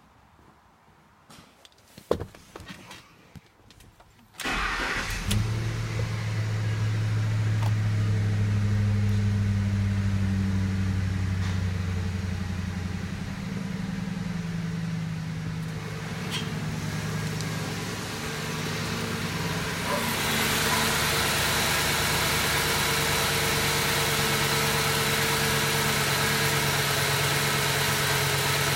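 A few clicks, then the Ford F-150's 4.6L V8 cranks and starts about four seconds in and runs on at idle. It idles high at first and settles to a lower, steady idle about halfway through; from about two-thirds of the way in the engine is heard closer, with more whir and hiss.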